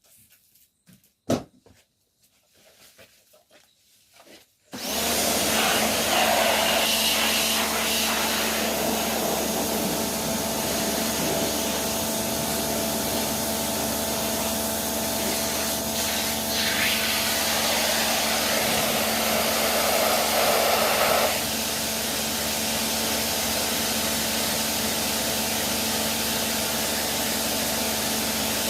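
A sharp click about a second in, then a pressure cleaner starts abruptly about five seconds in and runs steadily: its motor and pump hum under the hiss of the water jet, which shifts in tone a few times as it sprays.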